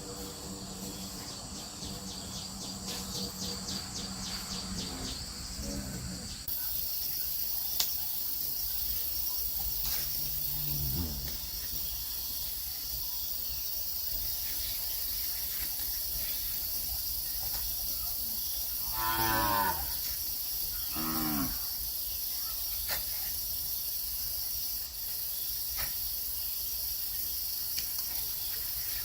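Cattle mooing several times: a long low call that falls away near the start, another around ten seconds in, and two louder calls about two-thirds of the way through. A steady high-pitched insect chorus runs underneath.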